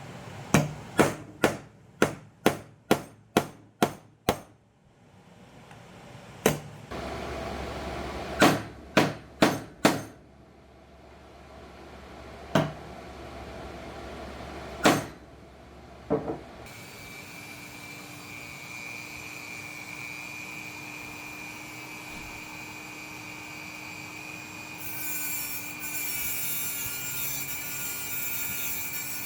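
Hammer striking a punch to drive drilled-out rivets from a motorcycle clutch housing: a quick run of about nine blows, then a few scattered single blows and one group of four. After that a steady hum with a high whine runs on, with a rougher scraping hiss near the end.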